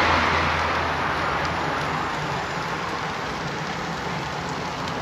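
Chicken wings sizzling over a charcoal grill: a steady hiss and crackle of fat dripping onto the coals, louder at first and easing off, with a low hum underneath.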